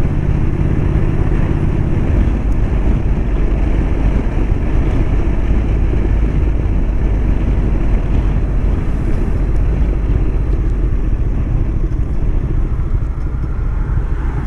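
Motorcycle running steadily while riding, with wind rushing over the microphone.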